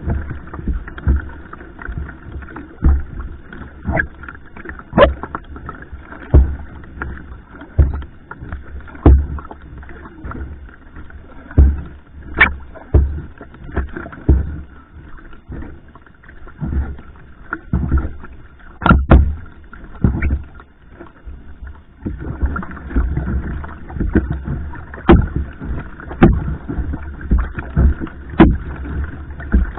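Va'a (outrigger canoe) being paddled hard: paddle strokes catch and splash in the water about once a second, with sharp knocks and a steady wash of water and low rumble between them.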